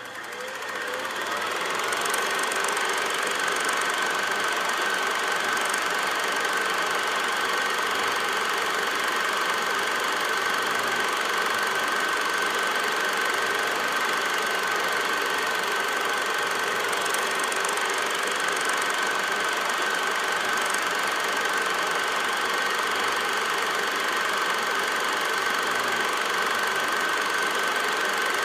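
8 mm film projector running: a steady mechanical whir with a high steady whine, coming up to speed over the first two seconds and then holding unchanged.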